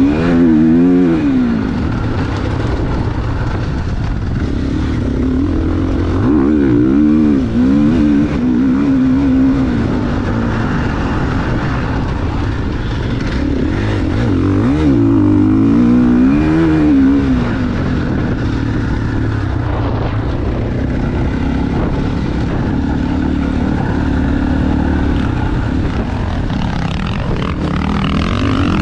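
GasGas MC450 four-stroke single-cylinder dirt bike engine being ridden hard, its pitch rising and falling again and again as the throttle opens and closes through the track's jumps and corners.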